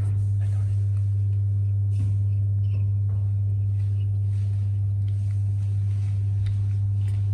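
A loud, steady low hum, with faint soft rustles of a fluffy blanket as a baby monkey shifts and sits up on it.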